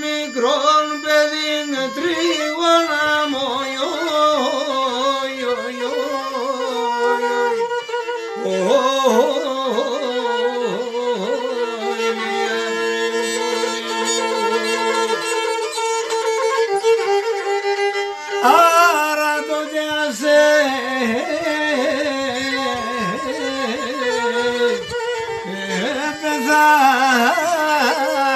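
Folk music led by a bowed fiddle-type string instrument playing an ornamented, sliding melody, with a run of long held notes in the middle before the fast figures return.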